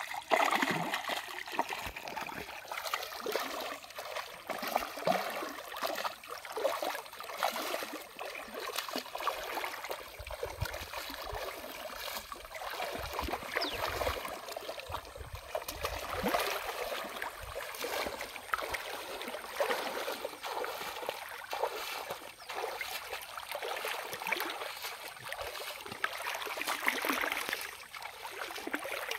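Water splashing and sloshing as a person wades through shallow water, the churning around the legs going on without a break. A hooked fish splashes at the surface near the start.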